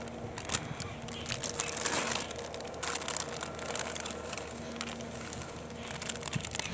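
Plastic balloon packet crinkling and rustling as it is shaken out, with a rapid patter of small clicks as the uninflated rubber balloons tumble onto the dry dirt.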